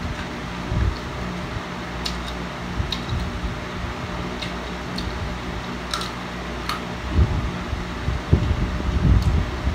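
Electric stand fan running steadily, with a handful of short crisp clicks as raw carrot slices are bitten and chewed.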